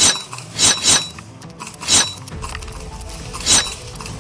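Airsoft gun firing short bursts of a few rapid, sharp shots, about four bursts with pauses of roughly half a second to a second and a half between them.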